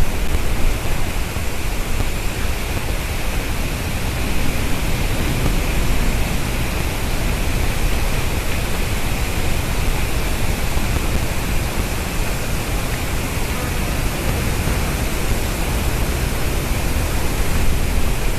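Steady, loud rushing noise with a faint high hiss running through it; no distinct bird calls stand out.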